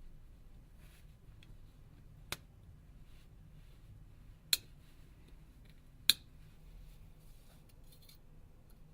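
Three sharp clicks a couple of seconds apart: the clips of a metal shielding lid on a phone's circuit board snapping free as it is levered off with a dental tool.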